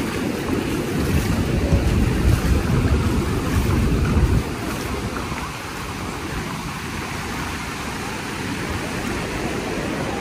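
Surf breaking on a beach, with wind buffeting the microphone in heavy low gusts that drop off suddenly about four seconds in, leaving a steady wash of waves.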